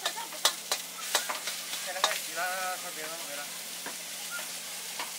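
Greens and rice sizzling as they are stir-fried in a hot wok over a gas flame. A metal ladle clacks and scrapes against the wok, most sharply in the first two seconds.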